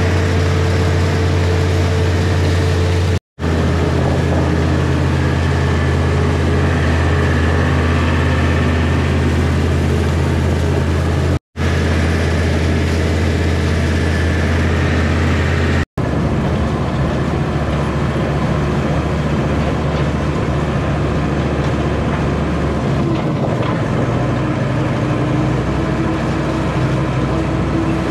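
Tractor engine running steadily while pulling a wheel hay rake. The sound drops out for an instant three times, and the engine's tone shifts a little after the last break.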